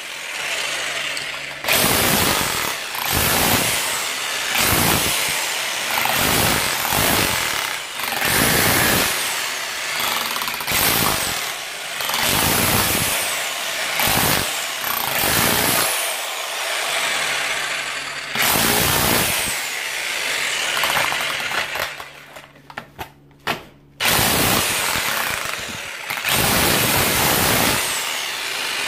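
Parkside PBH 1500 F6 SDS-plus hammer drill in chisel mode, its pneumatic hammer mechanism driving a pointed chisel into masonry in repeated bursts of a second or two each. It stops for about two seconds roughly three-quarters of the way through, then starts again.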